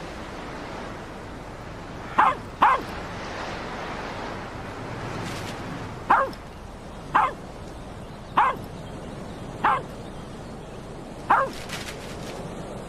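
A small dog barking: seven short, sharp barks spaced one to two seconds apart, over a steady rush of wind.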